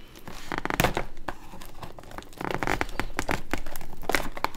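Tape being peeled and torn off a toy playset box, with crinkling of the packaging in irregular crackles and ticks and a longer stretch of rustling about halfway through.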